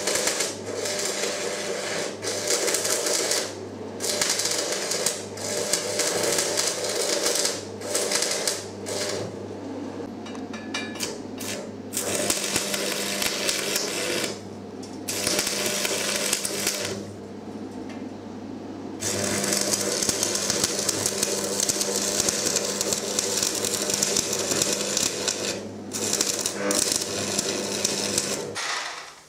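A power tool running in long stretches of several seconds, with short pauses about 14 s, 17 s and 26 s in, giving a steady hum under a harsh rasping noise, as in work on the fireplace's steel and brick. It stops just before the end.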